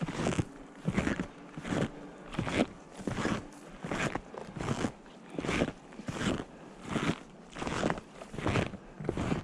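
Snowshoes crunching into snow at a steady walking pace, about one step every 0.7 seconds.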